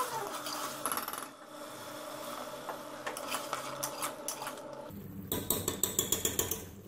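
A metal spoon scraping and clinking against the sides of an aluminium pressure-cooker pot while stirring chicken and taro root frying in masala. The clinks are scattered at first, with a quick run of them from about five seconds in.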